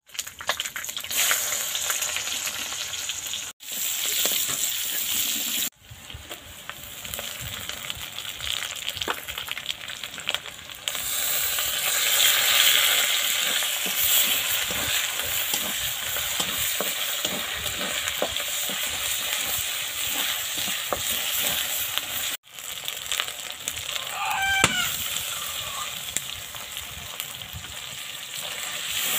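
Chicken pieces and then sliced onions frying in hot oil in a karahi, sizzling steadily while a metal spatula scrapes and stirs against the pan. The sound breaks off for an instant three times, and a brief high chirp stands out about three-quarters of the way through.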